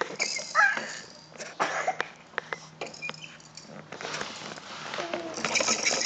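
Plastic toys on a baby's activity saucer clicking and clattering as they are batted and spun by hand, with a few short vocal sounds in between.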